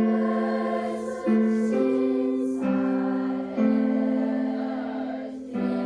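Music: choir-like voices holding long notes, moving to a new note about every one to two seconds, in a Taiwanese-language song.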